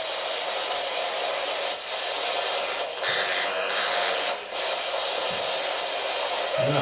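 Radio static hissing from a spirit box as it sweeps through stations, the hiss shifting abruptly every second or so.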